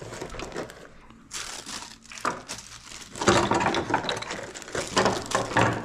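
Clear plastic packaging bag crinkling and rustling as it is handled, in uneven bursts that get louder about halfway through.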